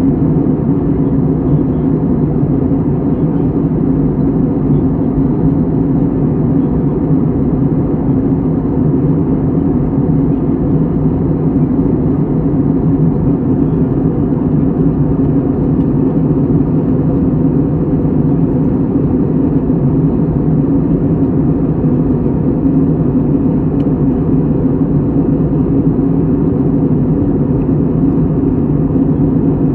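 Steady low rumbling white noise, even and unchanging, with a faint hum running through it.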